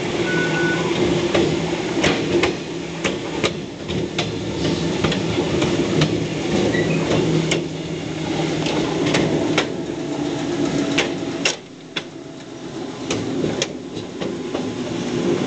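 Electric multiple unit train heard from inside at its rear, running slowly: wheels clacking irregularly over rail joints and points over a steady low hum.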